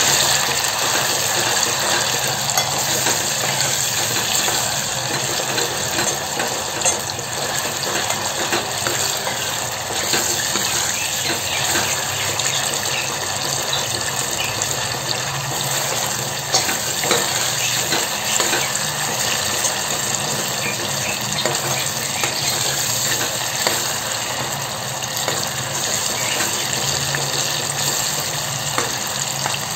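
Wet red-chilli and coriander paste frying in hot oil, a steady sizzling hiss as it is stirred, with a steel ladle now and then clicking and scraping against the pot.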